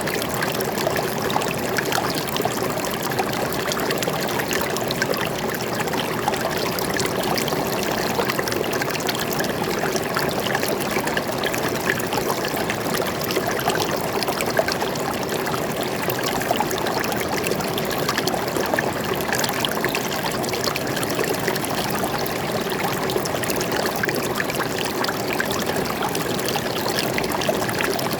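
Stream water flowing and trickling over rocks, a steady splashing rush with no change throughout.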